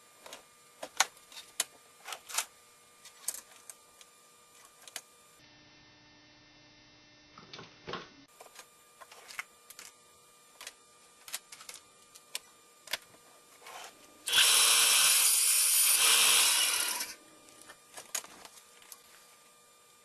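Scattered clicks and knocks from handling plastic blaster parts. About fourteen seconds in, a power tool runs loudly for about three seconds, then stops.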